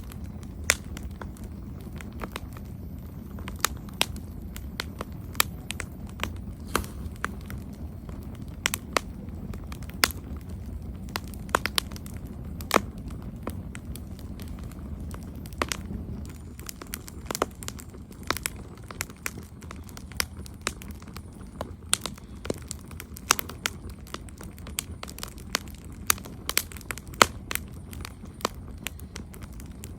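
Wood campfire crackling: irregular sharp pops and snaps, scattered through the whole stretch and several a second at times, over a low steady rumble.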